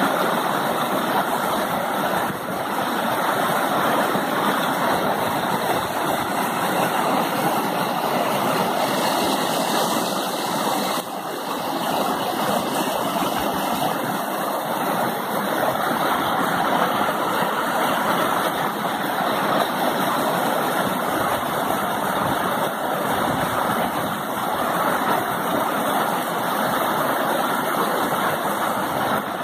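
Mountain creek tumbling in small waterfalls over boulders: a steady, unbroken rushing of white water.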